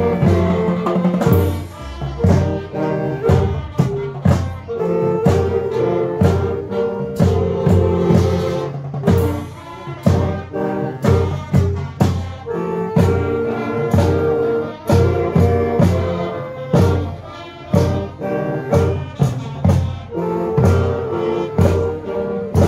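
Youth wind band playing: trumpets, trombones and saxophones sounding chords in phrases over snare drums and a bass drum that keep a steady beat.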